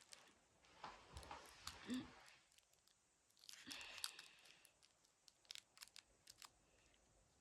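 Faint rustling and tearing of eraser packaging being worked open by hand, in two bouts, followed by a quick run of small clicks.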